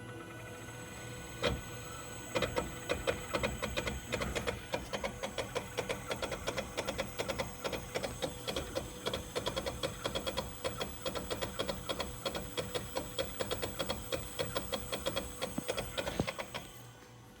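Rapid, even mechanical clicking, several clicks a second over a steady hum, from the front passenger wheel area of a Tesla Model X while it is charging. It starts after a single click about a second and a half in and stops shortly before the end.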